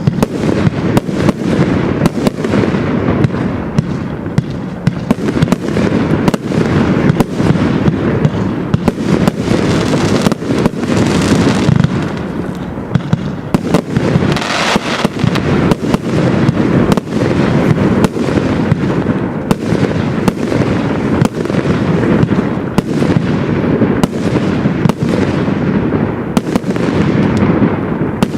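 Pyro King High Velocity compound firework cake firing a rapid, continuous barrage: dense sharp bangs of shots and bursts over a steady rumble, with a brief brighter hiss about halfway through.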